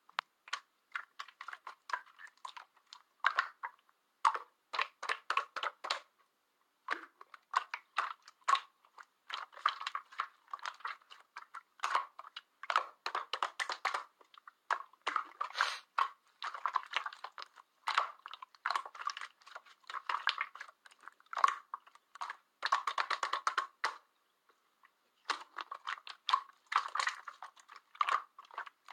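Slime being squeezed and kneaded by hand, giving dense runs of sticky clicks and small pops in bursts, with short pauses between handfuls.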